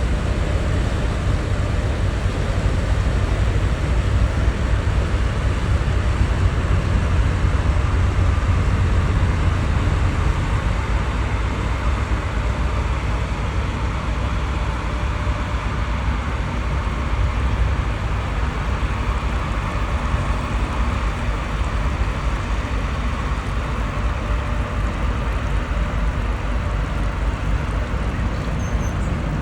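Steady low engine rumble under a wash of noise, swelling a few seconds in and easing off again: a cargo ship's engine passing on the canal.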